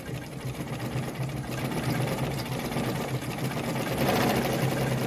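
Kohler WZ semi-industrial sewing machine running steadily as it sews a long straight stitch, a motor hum with a fast, even mechanical rhythm from the needle mechanism, building up over the first second.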